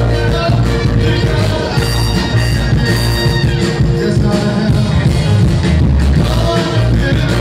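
A live Philly soul band playing: a vocal group singing over bass, drums and guitar through the venue's PA, with a steady beat and bass line.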